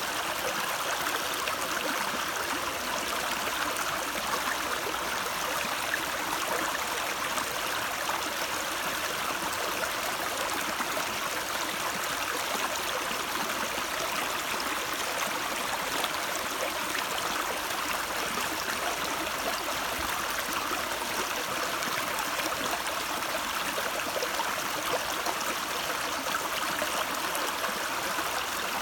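Running water of a stream, a steady rushing and gurgling.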